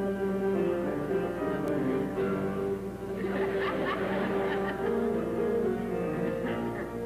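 Instrumental music with long held notes, the accompaniment to a silent-film spoof. About three seconds in, audience laughter rises over it and dies away near the end.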